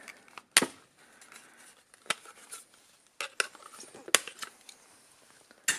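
Snap-fit plastic housing being pried apart with a flat-blade screwdriver: about half a dozen sharp plastic clicks and snaps, the loudest about half a second in.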